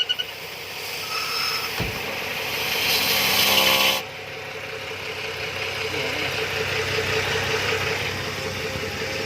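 BMW N55 turbocharged straight-six engine running, with a loud hissing rush that builds for a couple of seconds and cuts off suddenly about four seconds in; after that it settles to a steady run with a faint pulsing tone.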